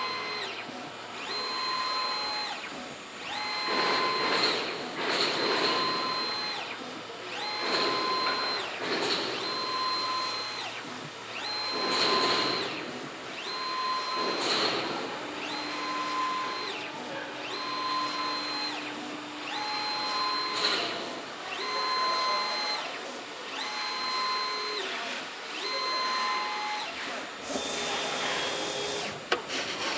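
Pattern cutting and plotting machine running. Its motors give a steady high whine in repeated runs, roughly every two seconds, as the head moves, with rougher rasping noise at times.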